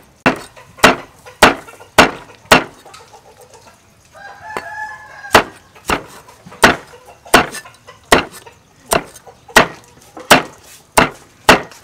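Cleaver chopping roasted pork head on a wooden chopping board, sharp chops about twice a second. The chopping pauses from about two and a half to five seconds in, when a rooster crows once.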